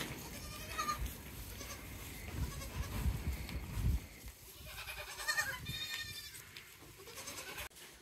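Mini Nubian goats bleating a few times, the clearest calls about five to six seconds in, with a low rumble a few seconds in.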